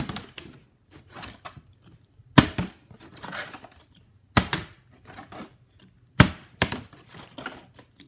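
A partly filled plastic water bottle being flipped and landing with sharp thuds on a wooden floor, about every two seconds, with softer knocks and scuffs between.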